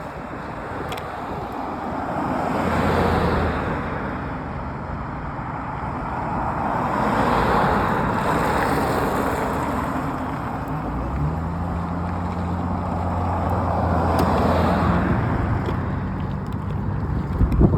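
Road traffic: cars passing one after another, each a swell of noise that rises and fades, with a steady low engine hum setting in about eleven seconds in.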